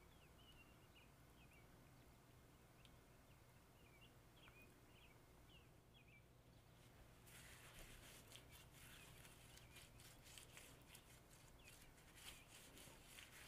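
Very faint: small bird chirps in the background, then about halfway through a gloved hand starts rubbing oily marinade into a raw leg of lamb, a run of soft wet clicks and squelches.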